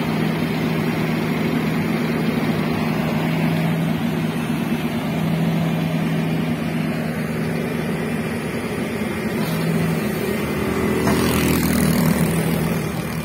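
Hydraulic excavator's diesel engine running steadily while the machine works its bucket, growing louder for a couple of seconds near the end as it takes more load.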